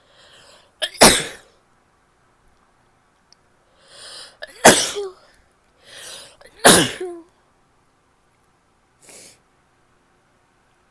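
A woman sneezing wetly three times, each sneeze preceded by a short in-drawn breath, about two to three seconds apart. A short faint breath follows near the end.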